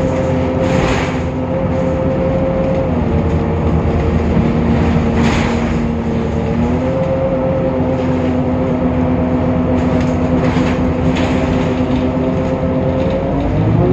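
Temsa Avenue LF city bus with a DAF PR 228 diesel and ZF Ecolife automatic gearbox, running with a steady whine that is unusual for this bus. The whine drops in pitch about 3 seconds in, rises again about 7 seconds in and shifts once more at the end, with a few brief hisses along the way.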